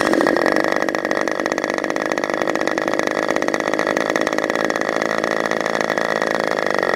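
Modified K&B .61 two-stroke glow-fuel model airplane engine running steadily on its first run after an overhaul, after an electric starter spun it over.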